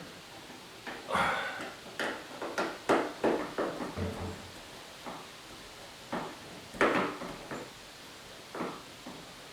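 Irregular knocks, clicks and rattles of parts and tools being handled during work on a shop light fixture, about a dozen sharp strokes with the loudest near the start, in the middle and a little past two-thirds of the way in.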